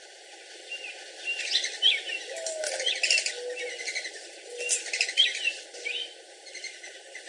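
Songbirds chirping in quick, gliding notes. Under them is a mourning dove's soft cooing song: a first coo that rises and falls, then three steady lower coos.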